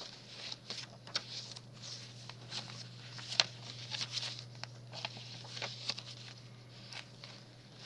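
Pages of a handmade paper journal being turned and handled: scattered light paper rustles and soft taps over a steady low hum.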